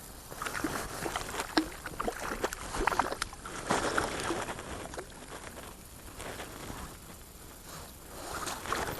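Irregular water splashing and sloshing with sharp little ticks, busiest in the first half and again near the end.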